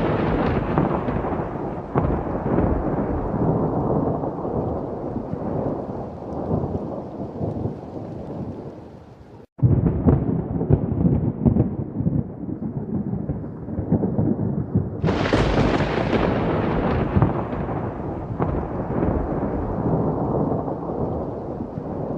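Thunder rumbling and rolling, slowly dying away. The sound cuts off abruptly about nine and a half seconds in and resumes rumbling. A fresh, sharper thunderclap about fifteen seconds in then rolls and fades.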